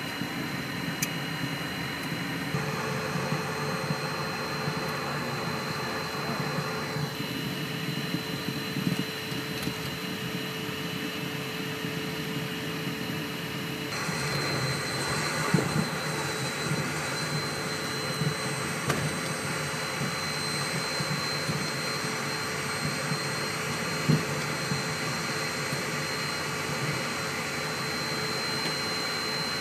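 Beechjet 400A's twin turbofan engines whining steadily at taxi power, heard from inside the cockpit. The sound shifts abruptly a few times, and a couple of brief knocks come through about halfway and about three-quarters of the way in.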